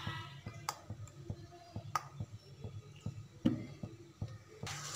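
Cooking oil poured into an empty pan on the stove, with scattered faint ticks and clicks over a low steady hum. A steady hiss comes in just before the end.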